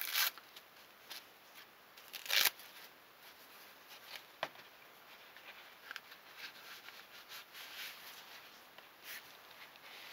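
Fabric wrist brace being handled as it comes off the hand: its hook-and-loop straps are pulled open in two short tearing sounds, the louder about two seconds in, followed by soft rustling of the fabric and a light click.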